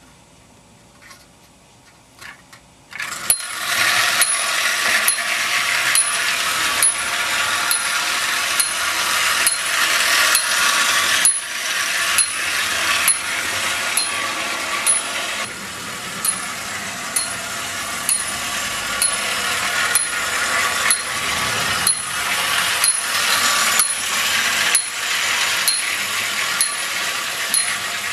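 Marx clockwork toy train: a few faint clicks while the locomotive is in hand, then from about three seconds in its wound spring motor runs with a loud, steady whirr of gears, the wheels clicking regularly about twice a second on the track.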